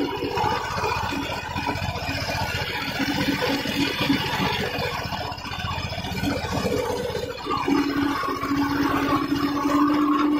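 Tractor's diesel engine running steadily under ploughing load, with dense low pulsing and a steady hum that fades soon after the start and comes back near the end.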